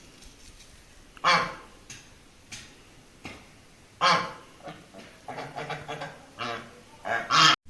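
Ducks quacking: two loud calls, then a run of short quacks and another loud call near the end.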